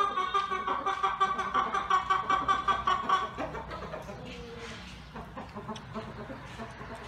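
Chicken clucking in a fast run of short calls, which stops about three seconds in.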